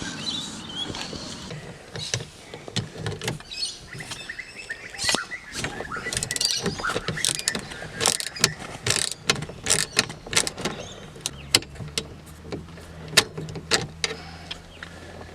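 Irregular run of sharp metallic clicks and knocks from a tool with a T50 Torx bit working the seat-belt anchor bolts. A steady low hum joins in for the last few seconds.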